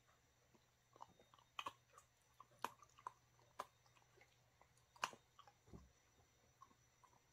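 A dog chewing beef liver jerky: irregular sharp clicks and crunches of its teeth, the loudest about five seconds in.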